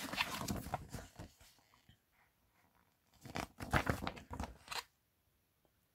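Paper rustling as a printed setup guide is handled and its pages flipped: a short spell at the start, then a louder run of crackling page turns about three seconds in.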